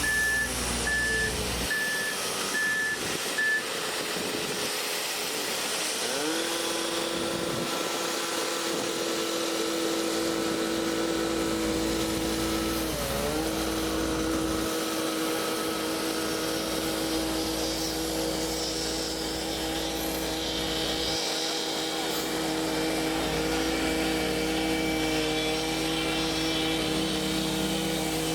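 Concrete truck's engine running steadily. A reversing beeper sounds about five times in the first few seconds; about six seconds in the engine speeds up and holds there, with a brief dip near thirteen seconds.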